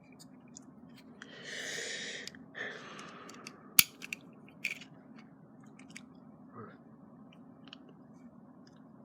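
Handling of a Schrade single-action OTF (out-the-front) knife: two short stretches of rubbing in the first three seconds, then one sharp click about four seconds in, followed by a few fainter clicks.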